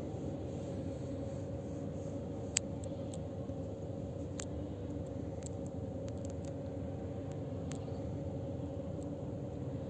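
Steady rumble and hum of heavy diesel trucks running at a truck-mounted concrete boom pump and its mixer trucks, with a few faint, sharp clicks over it.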